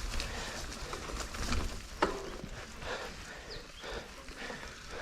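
Mountain bike rolling slowly down a rough, narrow dirt trail: scattered knocks and rattles from the bike, with a sharp click about two seconds in.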